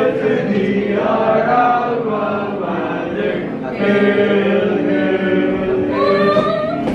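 A group of students chanting together in unison, many voices blending into one sustained chant.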